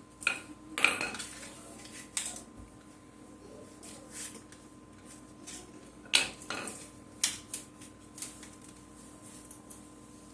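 A flat-head screwdriver and hammer working open the plastic case of a laptop battery pack: irregular sharp clicks, knocks and cracks, the loudest about a second in and about six seconds in.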